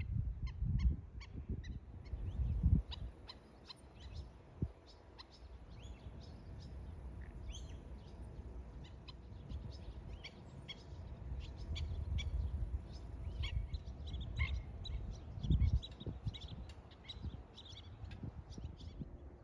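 Birds calling with many short, sharp chirps throughout, over wind rumbling on the microphone in gusts, strongest near the start and about fifteen seconds in.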